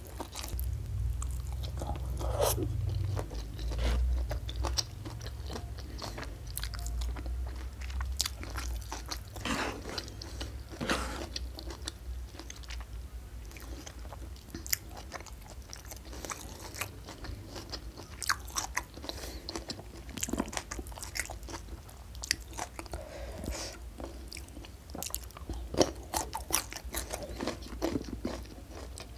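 Close-miked chewing and biting of a mouthful of rice and fish in green chilli sambal eaten by hand, with many short crisp crunches and clicks.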